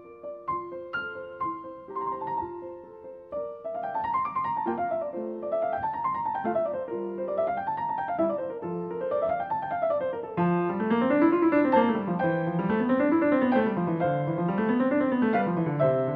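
Piano music: separate notes at first, then flowing runs of notes rising and falling over and over, growing fuller about two-thirds of the way in as a lower line of runs joins.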